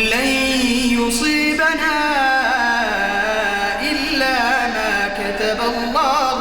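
A male reciter's voice chanting the Quran in melodic tajweed style, starting a phrase and drawing it out in long, ornamented notes that waver in pitch.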